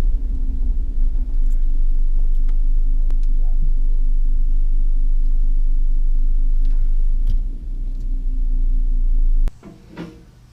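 Toyota 4Runner driving slowly, a steady low rumble of engine and road noise heard from inside the cabin with a few faint clicks. It cuts off suddenly about a second before the end.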